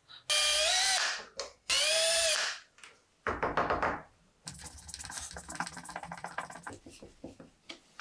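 Electric drill run in two short bursts, its whine climbing and then falling in pitch, then boring holes with a rough, rattly grind.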